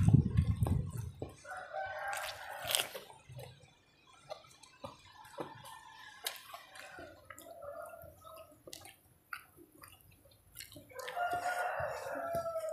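A rooster crowing twice in the background, once about a second and a half in and again near the end, over small wet clicks and smacks of someone eating rice and fish with their fingers. A low rumble fades out in the first second.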